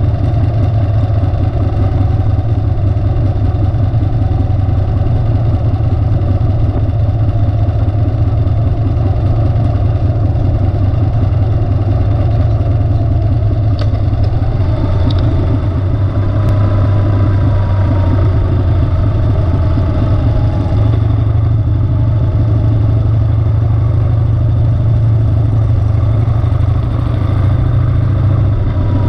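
Harley-Davidson motorcycle's V-twin engine running steadily as the bike rides along at an even speed, a loud, constant low drone.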